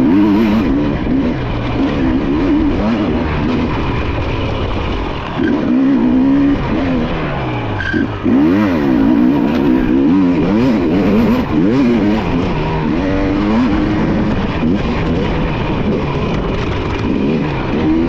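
Enduro dirt bike engine ridden hard, its pitch rising and falling every second or so as the throttle is opened and shut.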